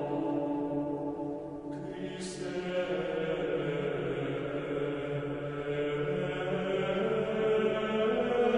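Slow vocal chant with long held notes that change pitch only gradually.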